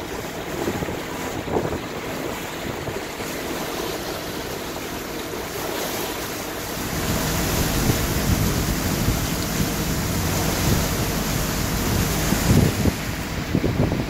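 Wind buffeting the microphone on a moving motor boat, over the steady hum of its engine and water rushing past the hull. The wind rumble grows louder about halfway through.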